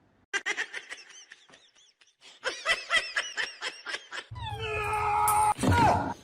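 Hearty laughter in quick repeated bursts, two runs of it, then a longer falling cry near the end.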